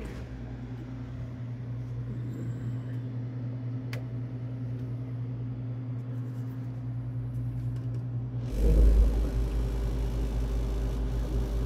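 A commercial freezer running with a steady hum from its refrigeration unit, and a single click about four seconds in. About eight and a half seconds in, a louder rush of fan air and a low rumble join in.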